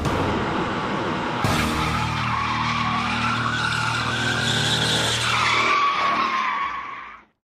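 Dodge Challenger spinning its rear tyres under power, the tyres squealing in a wavering, drawn-out screech over the engine running hard. It fades out near the end.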